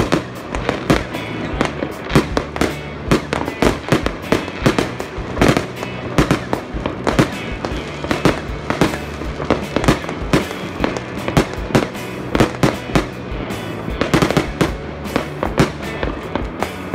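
Fireworks going off: a dense, irregular run of bangs and crackles, several a second, from aerial shells bursting in the sky.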